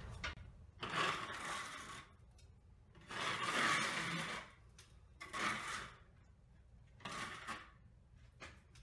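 A wide drywall knife is drawn across wet joint compound on a textured ceiling, knocking down fresh skip trowel texture. It gives four soft scraping strokes, the longest about a second and a half.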